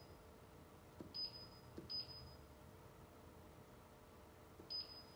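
Touchscreen control panel beeping as keys are pressed: three short, high, single-pitch beeps, about a second in, two seconds in and near the end. Each comes just after a soft tap of a finger on the screen.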